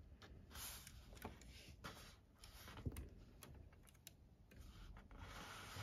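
Faint, scattered clicks and soft rubbing of a LEGO model car being handled: plastic bricks and tyres tapping and sliding against fingers and the tabletop, with a longer stretch of rubbing near the end.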